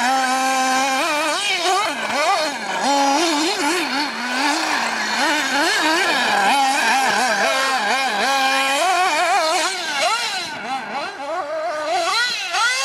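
Radio-controlled off-road cars racing: several small high-pitched motors revving up and down, their pitch swinging quickly as they speed up and slow down through the turns.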